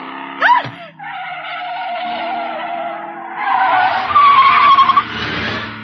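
Car engine running, then tyres squealing as the car skids hard, starting about three seconds in and lasting close to two seconds.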